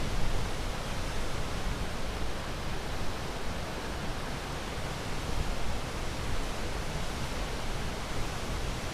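Ocean surf making a steady, even rushing hiss, with no separate wave crashes standing out.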